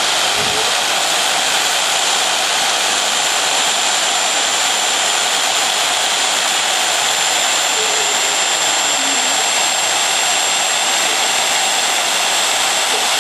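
CNC router spindle running at speed with its bit milling a foam hemisphere: a steady, loud hiss with a thin high-pitched whine held over it.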